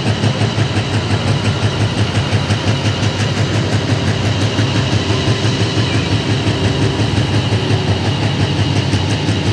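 Turbocharged diesel engine of a Pro Stock pulling tractor idling loudly with a steady, lumpy pulsing beat.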